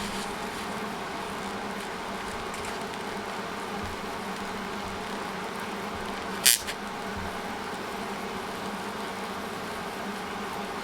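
Steady electrical buzz made of several steady tones, broken by one sharp crack about six and a half seconds in.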